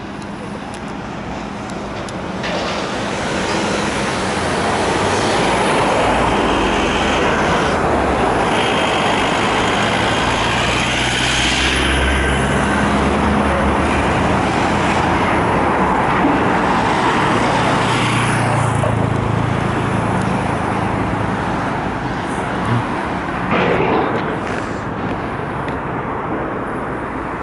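Road traffic passing on a wide street: tyres and engines of vehicles going by, with a heavy tipper lorry's low engine rumble and a small car passing through the middle, easing off near the end. A couple of short knocks come a little before the end.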